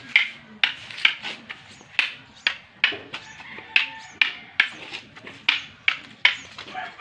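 Arnis sticks clacking together in a slow sinawali double-stick drill: sharp wooden strikes in a steady rhythm, about two a second.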